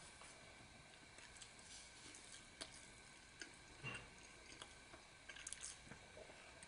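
Near silence broken by faint, scattered light clicks and a soft knock, the small taps of a fork against a plate while eating.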